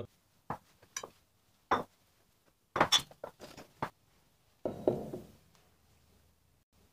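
Glass mixing bowls being handled and set down on a wooden tabletop: a string of short knocks and glassy clinks, the last about five seconds in with a brief ring.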